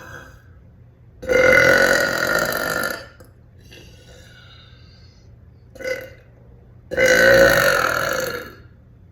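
A woman letting out two long, loud burps, each lasting close to two seconds, with a brief short one between them.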